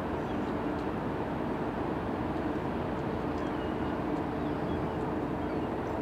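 Steady machinery drone and hum of the cruise ship Queen Elizabeth carrying across the water, with a few faint high chirps over it.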